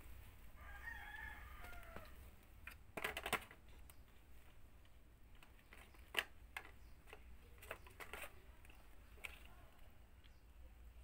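A faint rooster crow, one call lasting about a second and a half, then scattered light knocks and taps as kittens paw at a wooden frame and the things around it, the loudest a short cluster about three seconds in.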